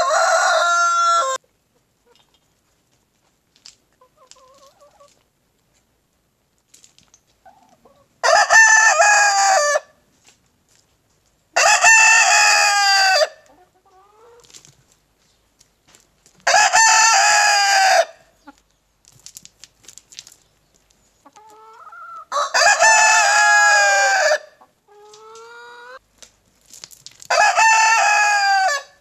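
Roosters crowing, among them a White Leghorn: a crow that ends about a second in, then five more long cock-a-doodle-doos, each about one and a half to two seconds and several seconds apart. Soft clucks come between the crows.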